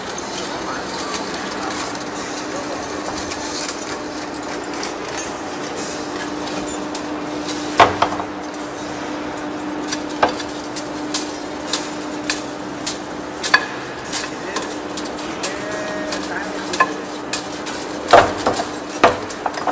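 Large metal lathe turning a big steel cylinder under a heavy cut: a steady cutting noise over a constant hum. From about eight seconds in, irregular sharp metallic clicks and clacks come, roughly two a second, as chips break off.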